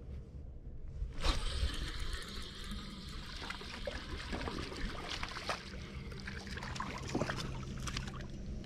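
Water splashing and trickling with scattered clicks as a hooked crappie is brought in and lifted from the water. A low steady hum runs underneath from about two seconds in.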